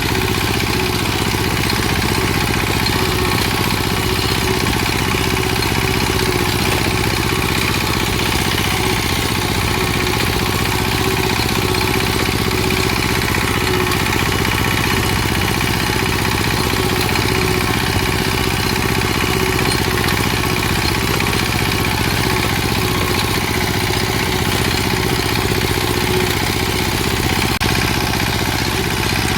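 An engine running steadily at idle, with a fast, even firing beat and no change in speed.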